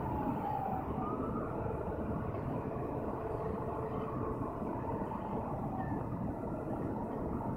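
Steady low rumble of a Great Lakes freighter passing close by, with a faint whine that slides slowly down in pitch.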